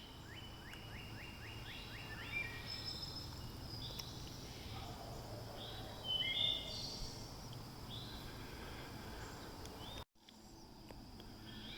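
Several songbirds singing in an evening forest: a quick run of sweeping chirps in the first two seconds, then assorted whistled phrases over a faint steady background, cut off briefly by an edit about ten seconds in.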